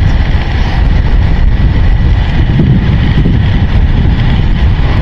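Loud, steady wind rush on the microphone of a camera on a moving motorbike, mixed with the bike's engine and road noise.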